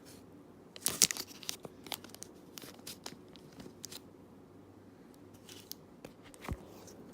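Small plastic baggie crinkling and rustling as a pin is worked out of it, loudest in a burst about a second in, then scattered small crackles and a single soft knock near the end.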